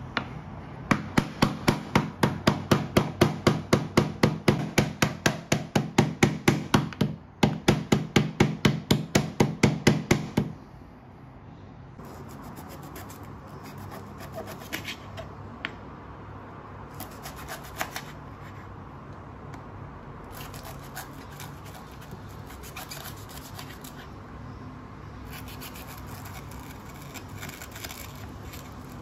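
Wooden rolling pin bruising lemongrass stalks on a bamboo cutting board: loud, rapid strokes about four a second with one short break, stopping about ten seconds in. After that, quieter knife cuts slice through the lemongrass on the board in scattered runs.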